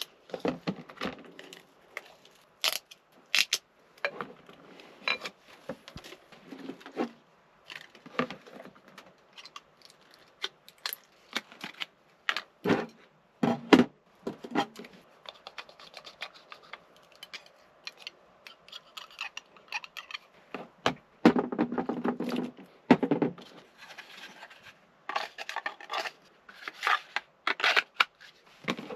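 Close-up handling noises, as of food preparation in a small space: a string of separate clicks, knocks, scrapes and rustles, with a denser stretch of clatter about three-quarters of the way through.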